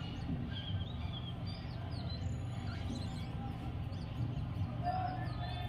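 Small birds chirping in short, high calls again and again over a steady low background hum of outdoor noise.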